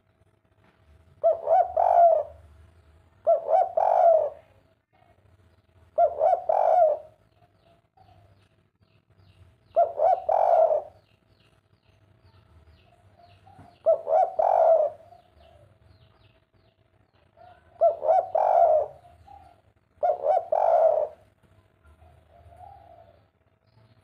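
Spotted dove cooing in the three-note 'kuk 3' style. There are seven loud coos, each about a second long and made of several quick pulses, a few seconds apart, with a soft low coo between them.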